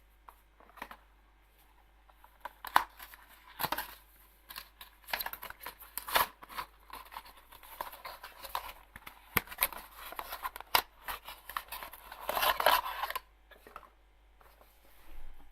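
Headphone packaging being handled and opened by hand: irregular rustling, crinkling and tearing noises with sharp clicks, the longest burst about twelve seconds in.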